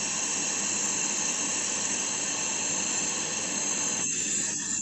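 Oxygen brazing torch flame hissing steadily as it heats a copper refrigerant pipe joint to unbraze it from the dispenser's compressor. About four seconds in, the flame sound drops away.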